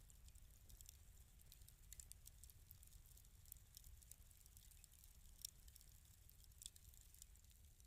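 Wood fire in a fireplace crackling faintly: small irregular pops and snaps over a low steady rumble.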